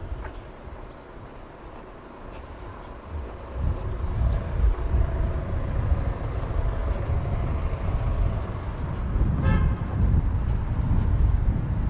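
Street traffic: a vehicle rumble that swells about three and a half seconds in and stays loud, with a short horn toot near the end.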